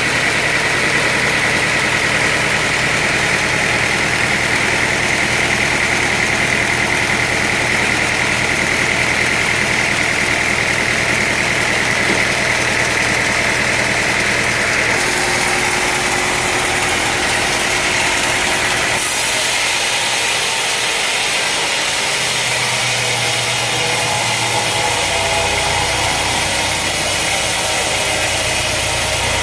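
Sawmill machinery running: a steady engine-like mechanical drone whose tone shifts twice, about halfway through and again a few seconds later.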